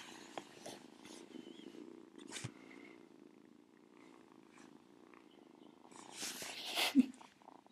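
Domestic cat purring steadily right against the microphone, with a rustle and a sharp bump near the end.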